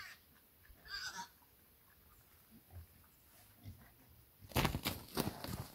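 Domestic pigs giving short high squeals, one about a second in. Near the end comes a quick run of loud, sharp knocks, the loudest sound here.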